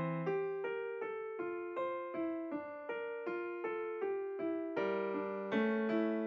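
Background piano music: a steady stream of struck notes and chords, about three a second, each fading before the next.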